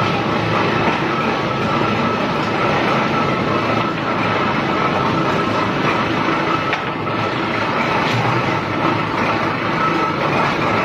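Clay brick-making machinery running: a gear-driven brick extruder and its feed conveyor give a steady, loud mechanical clatter with a constant high hum.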